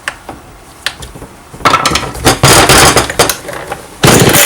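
Metal hand tool clinking and clattering against the chainsaw's starter-cover bolts as they are tightened: a few sharp clicks, then a loud run of rattling clatter from a little under two seconds in, and a loud noisy burst near the end.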